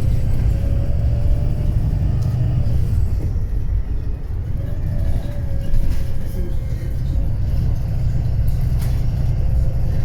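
A Wright Pulsar 2 bus running, its Cummins ISB engine giving a steady low rumble. Over it sits a thin whine that fades about the middle and comes back slightly higher.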